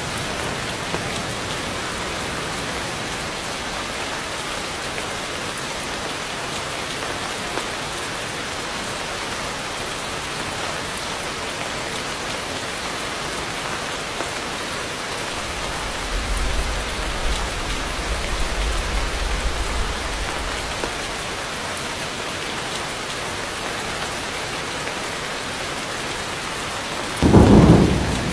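Heavy rain falling steadily on thick foliage. A low rumble of thunder rolls for several seconds about midway, and a sudden, louder thunderclap comes near the end.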